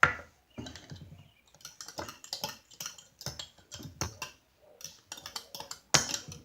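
Irregular run of clicks and taps, about two to four a second, from handling and stirring the homemade salt slime mixture in its container, with a sharp knock at the start and another near the end.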